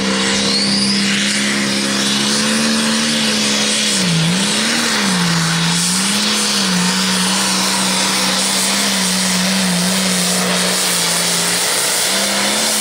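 Turbocharged diesel engine of an International pulling tractor running flat out as it pulls the weight sled. Its pitch holds steady, then dips and wavers briefly about four seconds in before steadying again.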